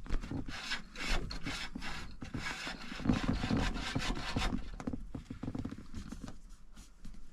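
Rapid scraping and rubbing strokes of heater cables being worked back and forth through their guide tubes, catching where the tubes are clogged with old junk. The strokes ease off and fade after about five seconds.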